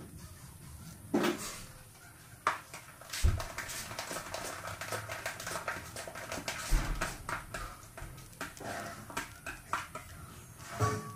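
Irregular taps, clicks and rustles of hands working with piping cones and bags over a cake on a worktop, with a few louder knocks and thuds among them.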